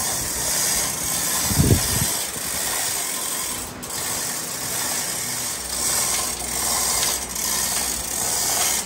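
Manual chain hoist being hand-pulled to lift a heavy wood blank, its chain rattling and its ratchet clicking steadily. One brief low bump about two seconds in.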